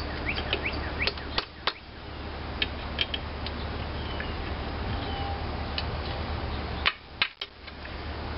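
Irregular sharp metallic clinks and taps of hand tools working nuts and bolts on an antique cast-iron engine, a few at a time with pauses between.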